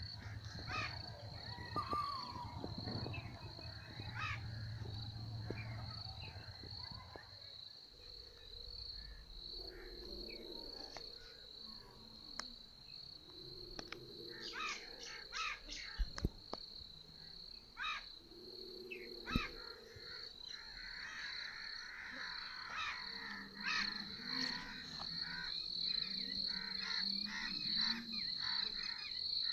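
Insects trilling steadily at one high pitch, with scattered short bird chirps over it; a low rumble underlies the first several seconds.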